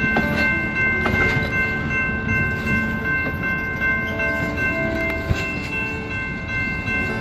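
Stainless-steel passenger cars rolling past over a grade crossing, wheels rumbling and clicking on the rails. Over them rings the crossing's warning bell, a steady ringing tone.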